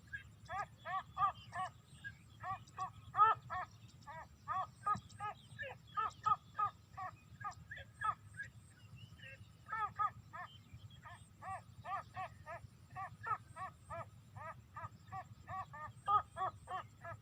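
Watercock calling: a long run of short, clipped notes, several a second, broken by a few brief pauses.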